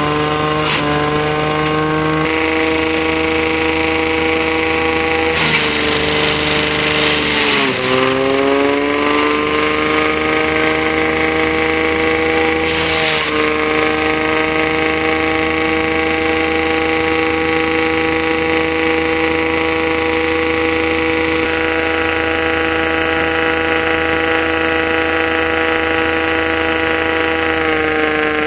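Tractor-driven banana waste shredder running at speed with a steady whine over the tractor engine. Twice, as banana stems go through, a rough shredding noise rises and the whine sags in pitch under the load, then climbs back as the rotor recovers.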